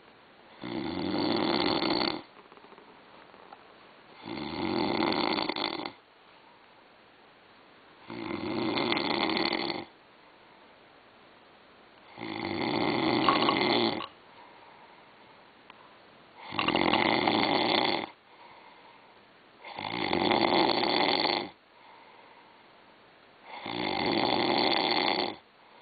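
A sleeping person snoring, seven regular snores of about two seconds each, one every three and a half to four seconds, with quiet gaps between. The uploader presents this as the snoring of sleep apnea.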